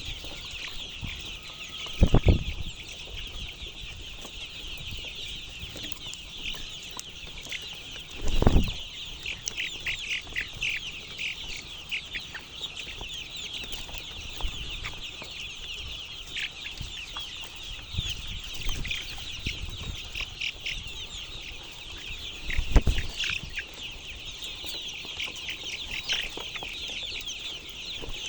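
A flock of chickens calling constantly, many short, high overlapping calls at once. Three loud low thumps break in, about two seconds in, near a third of the way through, and near the end.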